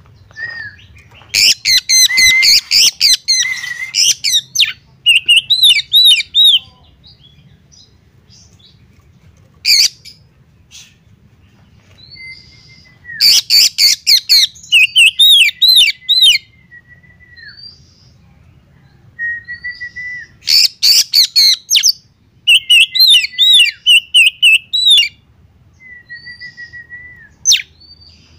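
Oriental magpie-robin singing in loud bouts of quick, sharp clicking notes mixed with rising and falling whistles. Several bouts come a few seconds apart, with short pauses between them.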